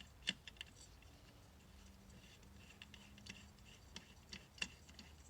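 Faint, irregular light metallic clicks as a wrench works a 10 mm nut off an alternator.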